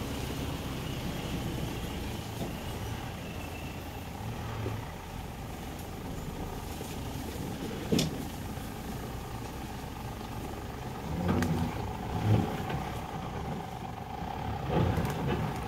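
Ford Ranger 4x4 pickup's engine running at low revs as it crawls along a muddy, rutted off-road trail. A sharp knock is heard about eight seconds in.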